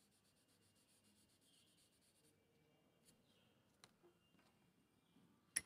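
Near silence, with faint rubbing of paper over pencil shading to blend it in the first two seconds or so. A faint tick comes about four seconds in and a short sharp click just before the end.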